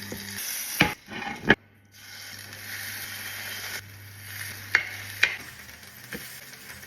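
Zucchini fritters frying in hot oil in a pan, a steady sizzle, with a few sharp clicks of a utensil against the pan.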